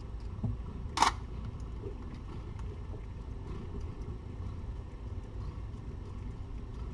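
Mother cat eating wet food from a steel bowl, with faint scattered ticks over a steady low hum. One sharp click sounds about a second in.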